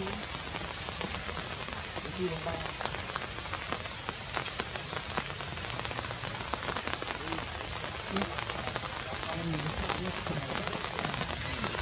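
Steady rain, with many separate drops clicking through it.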